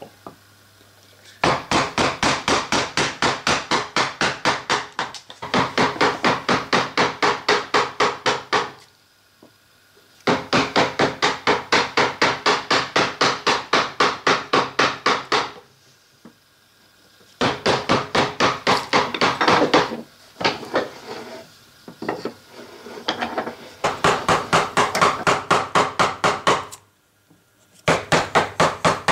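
Wooden mallet striking the handle end of a carving gouge in quick taps, about four a second, in bursts of a few seconds with short pauses between. The gouge is cutting shavings from a block of alder.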